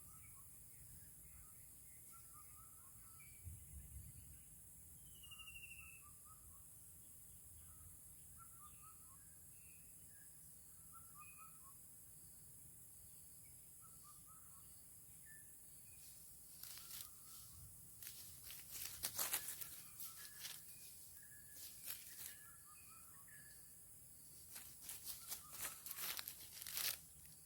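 Quiet forest background with faint, scattered small-bird chirps and one short whistled call about five seconds in. From about two-thirds of the way through come repeated bursts of wing flapping and rustling, as of a junglefowl thrashing in the trap.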